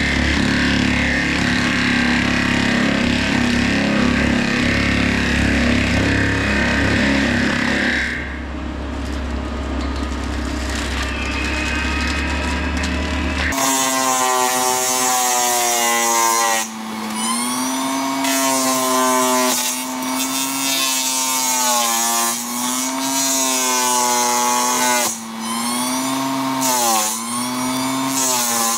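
Forestry mulcher grinding trees: a steady low engine rumble for about the first half, then, after an abrupt change, a whine whose pitch dips and recovers every second or two as the mulching head takes the load of the wood.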